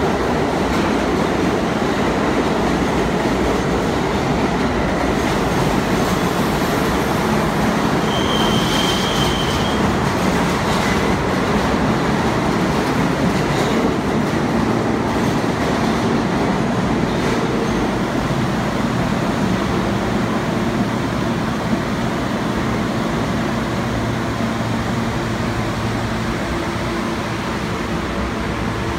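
New York City subway train running through the station, a steady loud rumble of wheels on rails with a brief high wheel squeal about eight seconds in. From about halfway through, a steadier low hum sits under the noise as a train stands at the platform.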